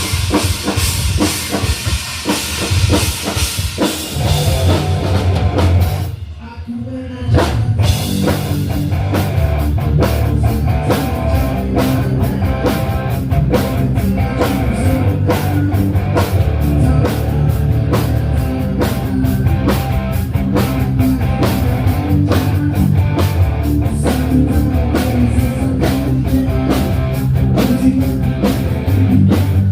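Live rock band playing loudly during a sound check, with drum kit, electric guitar and bass. The sound drops briefly about six seconds in, then the full band comes back in with a steady driving drum beat.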